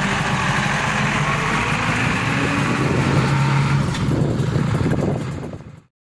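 Mitsubishi Colt Diesel truck's diesel engine running steadily at low revs, fading out near the end.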